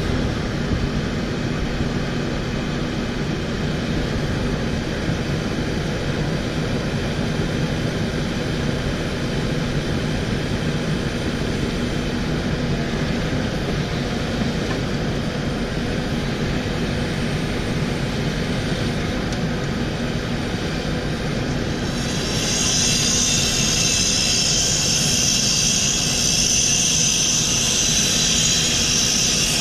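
Takeuchi TB1140 excavator's diesel engine running steadily under work, with a low engine hum. About three-quarters of the way through, a loud, steady high-pitched hiss comes in suddenly and stays.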